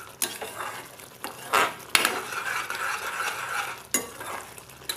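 Wooden spatula stirring and scraping a thick tomato-onion masala paste in a steel kadai, with a few sharp knocks against the pan over the faint sizzle of the cooking paste.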